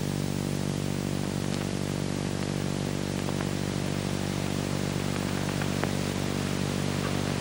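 Steady hiss and electrical hum from a worn old film soundtrack, with a few faint clicks.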